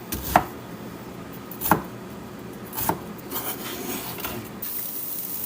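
Kitchen scraping and knocking: three short, sharp strokes of a utensil or dish about a second and a quarter apart, then softer rubbing.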